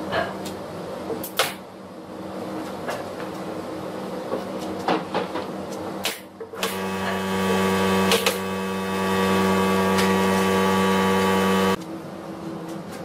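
A few sharp clicks and knocks, then a 2.5 HP electric air compressor's motor starts about six and a half seconds in and runs with a steady hum until it cuts off abruptly near the end.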